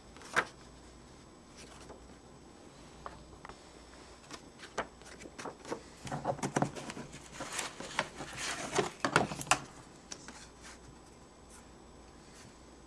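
Sheets and cut circles of construction paper being handled on a desk: paper rustling with scattered sharp taps, busiest for a few seconds in the middle.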